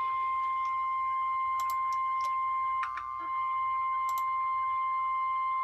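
NOAA Weather Radio warning alarm tone: a single steady high beep near 1050 Hz, held continuously and heard through a radio receiver. It signals that an emergency warning broadcast, here a tornado warning, is about to follow.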